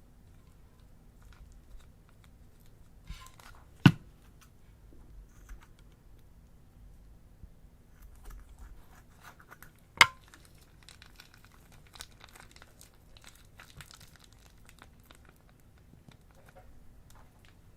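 Plastic piping bags crinkling and rustling as they are handled, with two sharp loud snaps or knocks, about four seconds in and again about ten seconds in.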